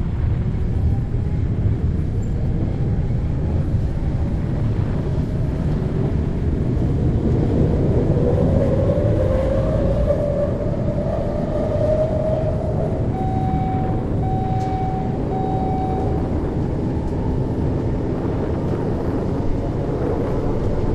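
Rocket launch: a steady deep rumble. Partway through, a faint tone rises slowly, and three short beeps sound about two-thirds of the way in.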